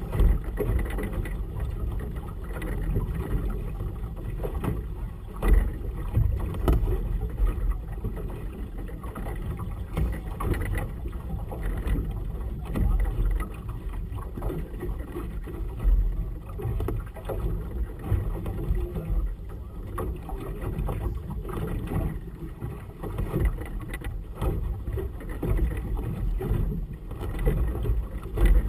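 Gusty wind buffeting the camera microphone with a low rumble, over choppy water lapping against a small boat's hull; a few heavier thumps come through, about 5 seconds in, about 16 seconds in and near the end.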